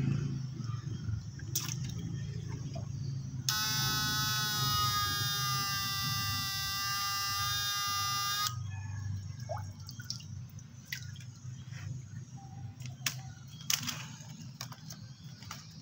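Homemade transistor fish stunner (setrum ikan, here running on four transistors) giving a steady high-pitched electronic whine while energised with its rods in the pond water. The whine starts a few seconds in, lasts about five seconds and cuts off suddenly. Around it are water sloshing and scattered clicks.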